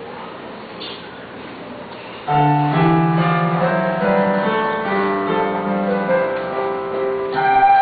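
Room noise, then a piano accompaniment starts about two seconds in, playing the introduction in held chords over a bass line. A group of recorders joins in near the end with higher sustained notes.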